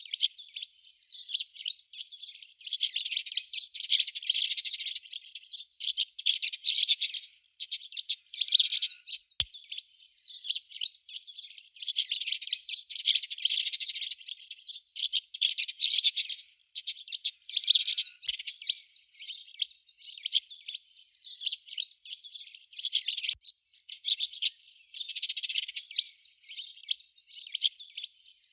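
Flock of Eurasian tree sparrows chirping at a colony nest box: many short chirps overlapping in nearly continuous bursts with brief pauses.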